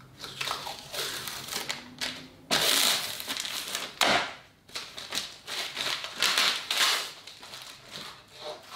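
Protective work gloves being pulled and peeled off the hands: irregular crinkling and rustling. There is a louder rustle about two and a half seconds in and a sudden sharp sound at about four seconds.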